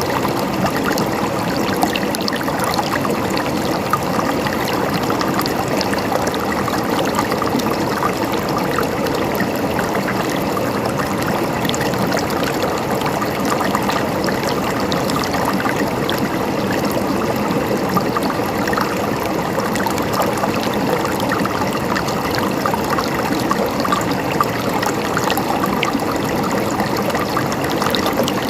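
River water flowing steadily over stones, an even rushing with fine splashing and trickling.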